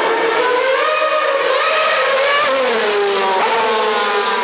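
Formula One car's engine revving high, its pitch climbing in steps and then dropping away about two and a half seconds in.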